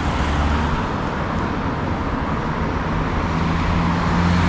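Road traffic at a city junction: cars driving past close by, a steady rumble of engines and tyres. An engine's hum comes in about three seconds in, and the sound grows a little louder near the end as a car passes close.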